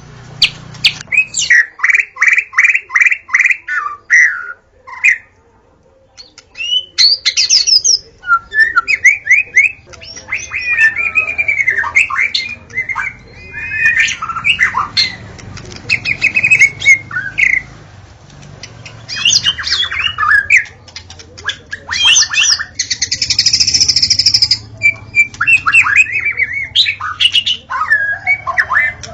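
White-rumped shama in full song: a long, varied run of rapid repeated whistles, rising and falling trills and harsh notes, with a brief pause about six seconds in and a rasping note near the end.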